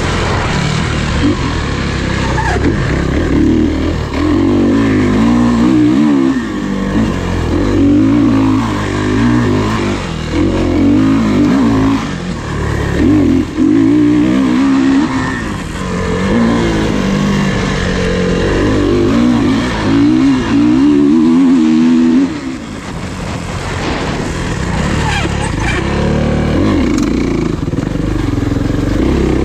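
Off-road race dirt bike engines at full race pace, revving up and dropping back again and again as they go through the gears.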